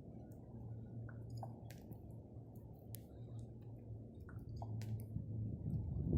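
Common raven making its knocking, clicking calls, a scatter of sharp clicks and short falling notes like water drops and ice falling, over a steady low rumble.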